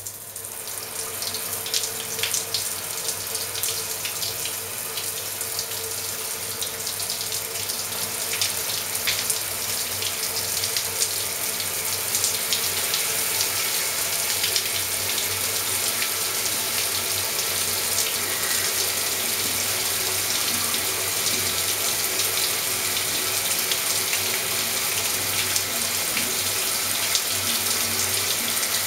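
Shower water turned on through an LED shower head: the spray starts suddenly, builds over the first couple of seconds, then runs as a steady hiss of water.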